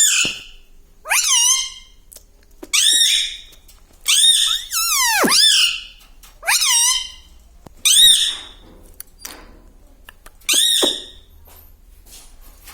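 Indian ringneck parrot giving a series of about seven short, shrill calls, each under a second, with sliding pitch; one longer call about five seconds in sweeps down sharply. The calls stop about eleven seconds in.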